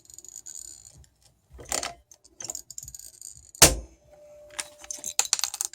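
Hand pop-rivet gun and small metal parts being worked: rattling and clinking, a few sharp clicks, and one loud snap about three and a half seconds in, typical of a rivet's mandrel breaking off as the rivet sets.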